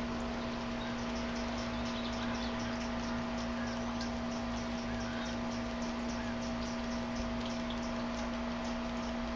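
Hummingbirds chipping: short, high chips several times a second, over a steady low hum.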